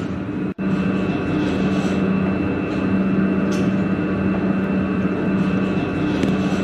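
Wheelchair platform lift running: a steady motor hum with a constant high whine. The sound drops out sharply for a moment about half a second in.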